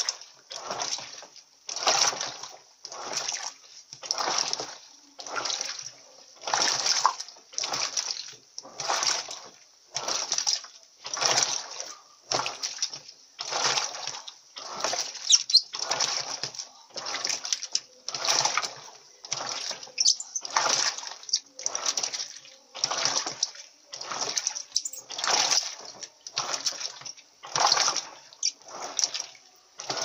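Electrolux Silent Control 16 kg top-loading washing machine agitating a load of sneakers in low soapy water on its sneaker cycle. Rhythmic swishing splashes come a little over once a second as the agitator turns back and forth.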